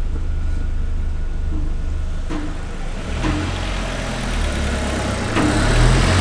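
Volkswagen 1.8T 20-valve turbocharged four-cylinder idling with a steady low hum. A broad rushing noise builds from about halfway through.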